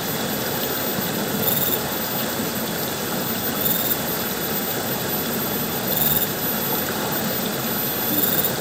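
Steady rushing of river water flowing past, an even noise that does not let up. A faint, short high-pitched chirp repeats about every two seconds above it.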